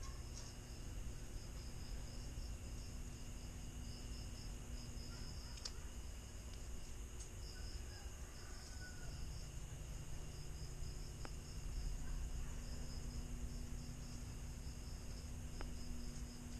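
Crickets chirping in a steady high pulsing trill over a low steady hum, with a few faint light clicks.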